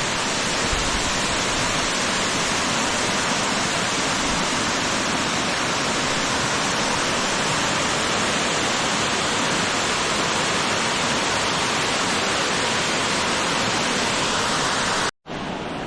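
Purakaunui Falls, a tiered waterfall, rushing steadily as water pours down its rock steps, cut off by a brief gap near the end.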